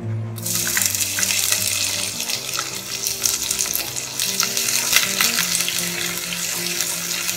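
Sliced onions dropped into hot oil and ghee in a pressure cooker, sizzling from the moment they land, while a wooden spatula stirs and scrapes them against the pan.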